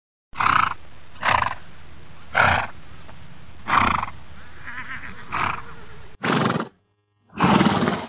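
Horse snorting: five short, sharp blasts of breath a second or so apart over a faint hiss, then two louder snorts near the end.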